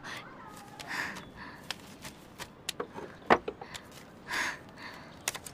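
Paper envelope being handled: soft rustles with scattered small clicks and taps, one sharper tap a little past halfway.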